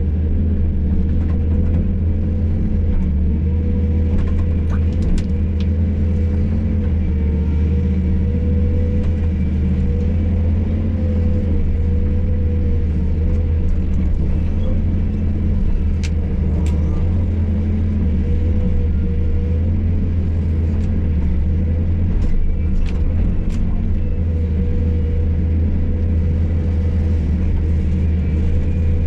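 Hydraulic excavator's diesel engine running steadily under working load, with a few faint sharp clicks or knocks from the machine at work.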